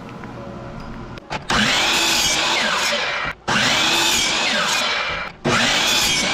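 A woodworking power tool cutting pine boards in three loud runs of about two seconds each, each one broken off suddenly. The pitch of each run rises and then falls back, as a blade loads up in the wood.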